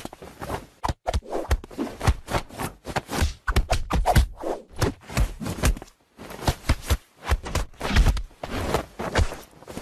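A hand patting a cat's belly in quick, irregular soft thumps, several a second, with brief pauses about six and seven seconds in.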